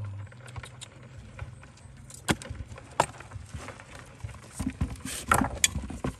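Long metal tongs clicking and scraping against stones and dry soil: a few separate sharp clicks in the middle, then a quick cluster of clicks and scrapes near the end.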